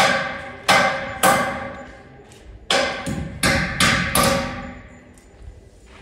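Hammer blows on galvanized steel roof framing, each strike ringing briefly. Three blows come in quick succession, then a pause, then about five more.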